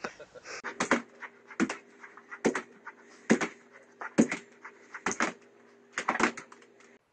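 Small white dog barking in short sharp yaps, about one a second, over a faint steady hum.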